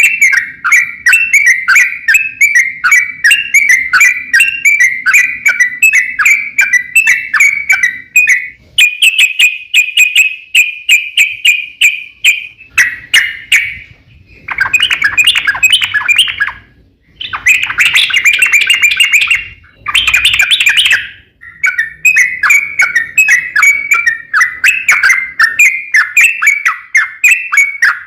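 Yellow-vented bulbul (trucukan) in full song, a long run of rapid, bubbling chattering notes with a few brief pauses near the middle.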